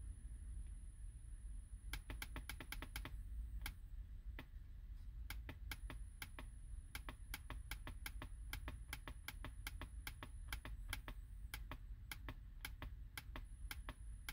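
Laptop keys clicking, faintly, as the fault-code list is stepped through: a quick run of clicks about two seconds in, a few single clicks, then a steady series of three or four clicks a second through the rest.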